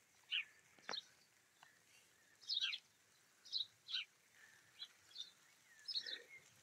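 Sparrows chirping in the garden trees: short, high chirps at irregular intervals, often less than a second apart.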